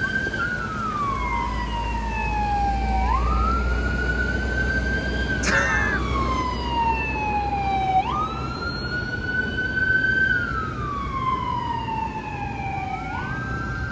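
An emergency vehicle's siren sounding a slow wail: the pitch rises, holds high, then slides down, repeating about every five seconds. A low rumble sits under it during the first half.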